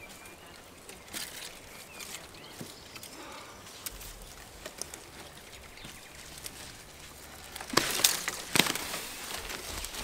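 Hand work in dry soil: small scrapes and clicks as roots of Spanish broom are worked loose from around a buried plastic water pipe, then louder crackling bursts near the end as a root is pulled out of the ground.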